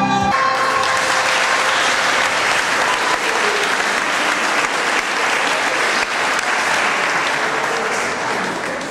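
Audience applauding, starting as the last note of the music cuts off and dying down near the end.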